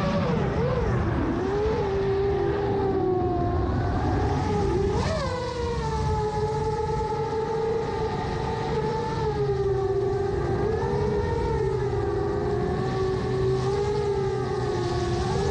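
7-inch FPV quadcopter's 2806-class brushless motors and propellers whining in flight, the pitch wavering up and down with throttle, with a quick sharp rise and fall about five seconds in.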